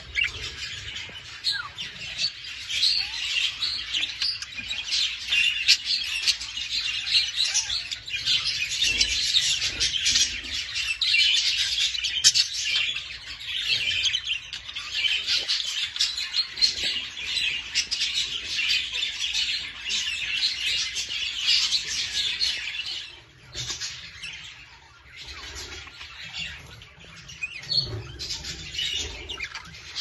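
Many budgerigars chattering and chirping together in a dense, continuous warble, which thins to sparser chirps about three-quarters of the way through.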